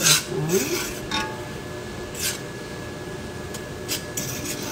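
Metal spoon stirring and scraping through mushrooms, onions and peppers in a cast iron skillet, with a few separate scrapes and a short metallic clink about a second in.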